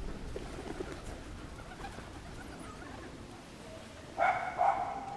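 Two short, loud animal calls close together near the end, over faint street ambience with a few fainter calls before them.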